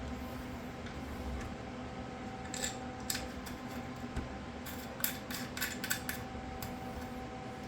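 Plastic clicks and taps as a keyboard's clip-on tilt riser is fitted to its underside: a couple near the third second and a quick cluster around five to six seconds in, over a faint steady hum.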